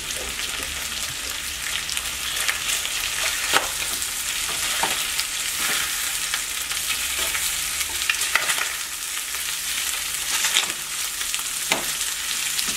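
Pieces of braised beef shank frying in olive oil and butter in a pan: a steady sizzle with occasional sharp pops.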